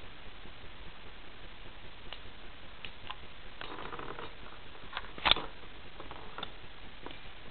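Beyblade spinning tops clattering in a plastic stadium: scattered light clicks, a short rasp just before four seconds in, and one sharp click, the loudest, a little past five seconds in.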